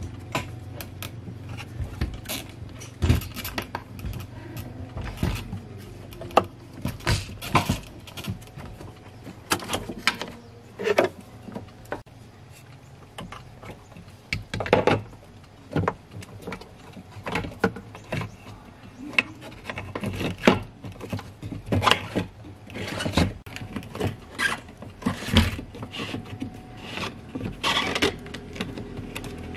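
Irregular clicks, knocks and plastic rattles as a car's fuel pump module and its plastic lock ring are handled and seated in the fuel tank opening, over a steady low hum.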